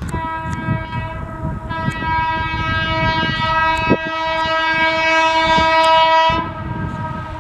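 Horn of a WAP-4 electric locomotive sounding one long, steady blast that swells louder about two seconds in and cuts off near the end, over the low rumble of the train running on the rails.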